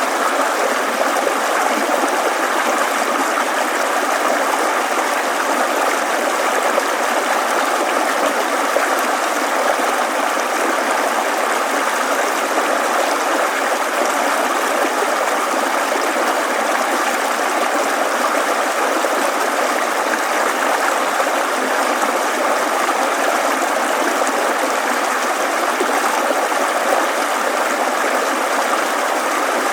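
Steady rushing and babbling of a shallow mountain stream, a continuous even water sound with no breaks.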